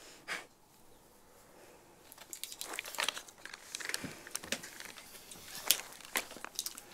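Quiet rustling and scattered small clicks of hands handling hair, clothing and a wire, as a wire is fixed to the back of a person's neck. It is near quiet for the first two seconds or so; the rustles and clicks pick up after that.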